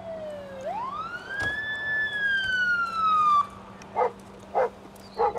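Police car siren sounding one wail: a short dip, a steep climb, then a slow slide down before it cuts off about three and a half seconds in.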